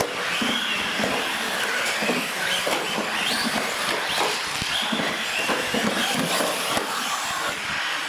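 Several radio-controlled UTV models racing on a concrete floor: their motors whine, rising and falling in pitch with the throttle, over a steady hiss.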